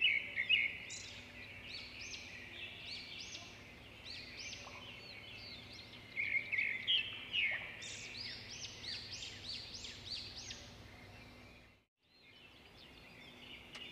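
Small birds chirping: a steady run of quick, high, arched calls. The sound drops out briefly near the end, then picks up again.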